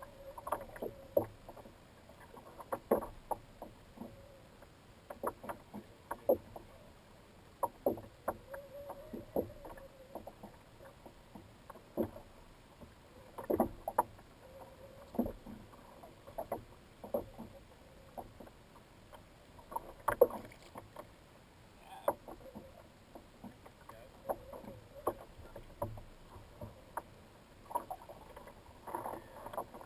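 Water slapping and knocking against a plastic sit-on-top kayak hull in irregular, sharp knocks, about one or two a second.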